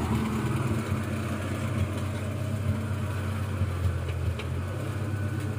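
Suzuki four-wheel-drive off-roader's engine running steadily at low revs while the vehicle creeps slowly forward.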